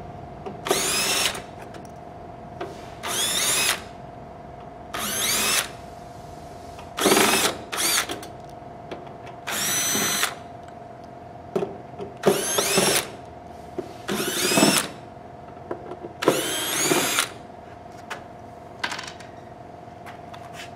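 Makita cordless drill with a Phillips bit backing out panel screws: about ten short spin-ups, each under a second, roughly every two seconds, the motor pitch sweeping with each. A steady hum runs underneath.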